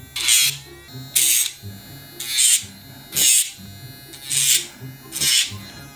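Electric dog nail grinder running with a steady hum, its spinning drum grinding down a pug's toenail in six short bursts about a second apart.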